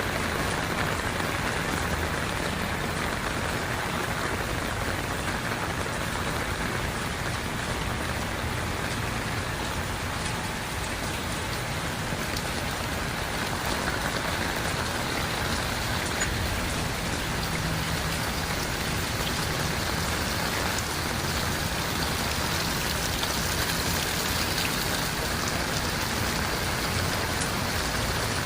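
Heavy rain falling and pattering on surfaces, a steady hiss with scattered drops ticking close by.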